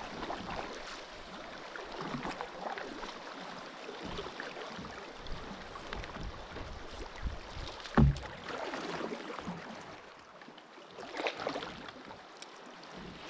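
Water splashing and sloshing around a kayak, in soft swishes, with one sharp thump about eight seconds in.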